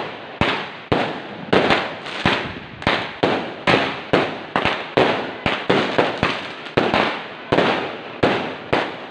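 Aerial fireworks shot up one after another and bursting overhead: a steady volley of bangs, about three every two seconds, each trailing off quickly.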